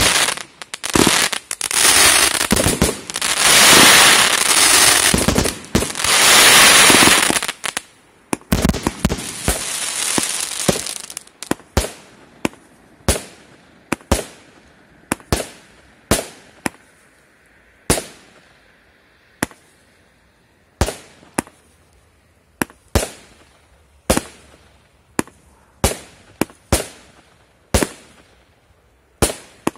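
136-shot fireworks compact cake firing. A dense, continuous crackling for about the first eleven seconds, then single shots bursting one after another at about one a second, each bang trailing off.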